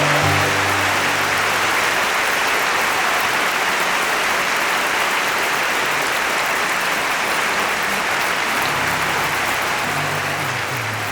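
Audience applauding, a dense steady clapping across the whole hall. Low sustained music comes back in under the clapping near the end.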